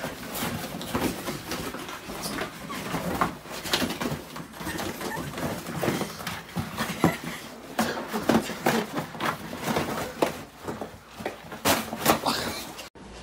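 Scuffling and thumps of a dog play-wrestling with people on a floor, in an irregular run of short knocks and rustles that cuts off suddenly near the end.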